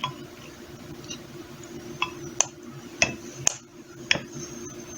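A metal spoon clinking against a dish several times, short sharp clicks a second or less apart, as someone eats.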